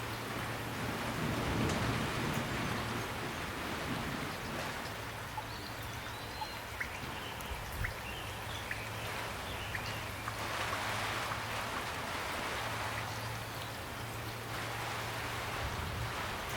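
Steady rain falling, with individual drops ticking close by.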